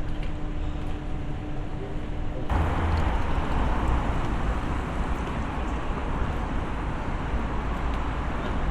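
Street traffic noise: a low steady hum, then about two and a half seconds in an abrupt jump to a louder, even rush of road traffic with a deep rumble.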